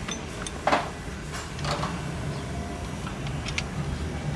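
Scattered metal clinks and knocks of hand tools on engine parts, the loudest a sharp knock under a second in, over a steady low hum.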